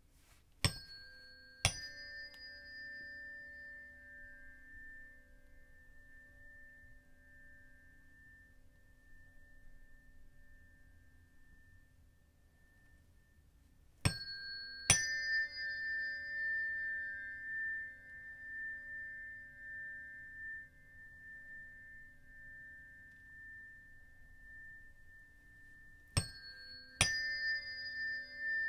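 Two tuning forks are struck one after the other, in three pairs about twelve seconds apart. Each strike is a sharp tap followed by a clear high tone, and the two tones sit close in pitch, ringing together with a slow waver as they fade.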